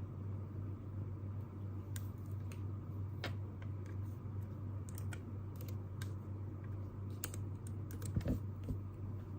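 Irregular light clicks and taps, a dozen or so spread unevenly, over a steady low hum. A louder, duller knock comes a little after eight seconds.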